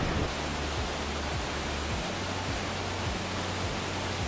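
Steady roar of a partly frozen waterfall, an even rushing hiss of falling water, with faint background music notes underneath.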